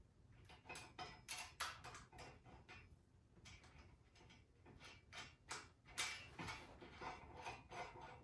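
Faint, irregular clinks and rattles of small steel parts being handled and fitted, with several brief high metallic rings, as nuts, washers and a threaded axle rod are put together.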